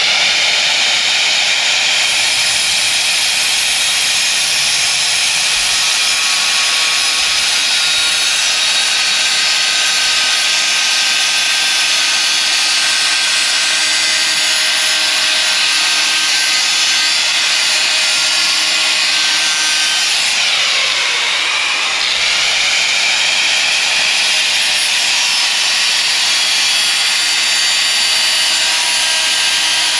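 Corded angle grinder with a thin cutoff wheel cutting through a metal plate: a steady high whine with a gritty cutting noise. About twenty seconds in, the motor's pitch sags as the wheel bears down into the cut, then climbs back.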